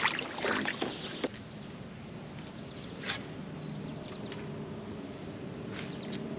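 Small birds chirping over a faint low steady hum. A few short knocks and splashes come in the first second or so.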